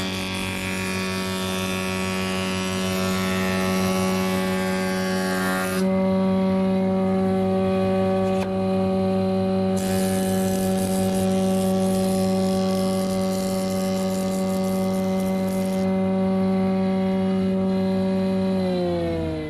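Planer thicknesser running for overhand planing, its motor and cutter block giving a steady hum, with two passes of timber surfaced across the cutter block, each adding a hiss of cutting for about six seconds. Near the end the machine's pitch begins to fall as it runs down.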